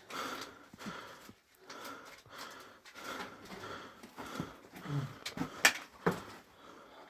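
Faint, breathy sounds like a person breathing hard or panting, with a couple of sharp clicks about five to six seconds in.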